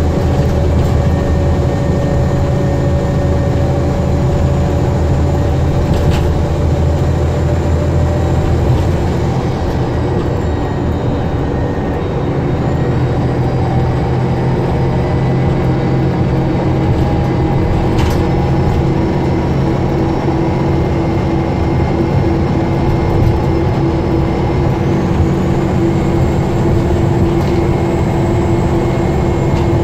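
A DAF DB250LF double-decker bus heard from on board while under way: a steady low engine drone with whining tones that shift in pitch about a third of the way in and again near the end. Two sharp clicks stand out, one early and one past the middle.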